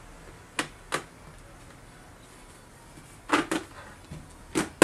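Hands handling a SHOEI Z-7 motorcycle helmet: short knocks and rubs against the shell and liner, in three pairs, about a second in, past three seconds and near the end, the last the loudest.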